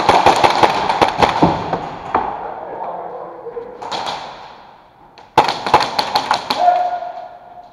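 Airsoft gunfire with BBs smacking plywood barricades: rapid sharp cracks and taps in two volleys. The first runs for about two seconds at the start, a short burst comes about four seconds in, and the second volley comes about five and a half seconds in.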